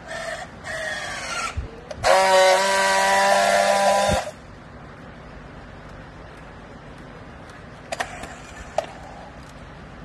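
Battery-powered handheld strapping tool working on a plastic bale strap. First a rising motor whine in short pulls as it tensions the strap, then a loud steady buzz for about two seconds as it friction-welds the seal. Two short clicks near the end.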